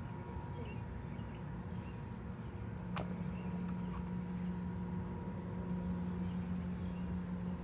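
A steady low hum, growing a little stronger about three seconds in, with a sharp click at that point and a few faint high chirps.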